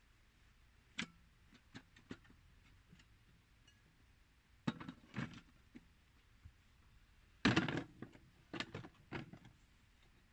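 Scattered clicks and knocks from handling work material, with a few short clusters and one louder, rougher knock about seven and a half seconds in.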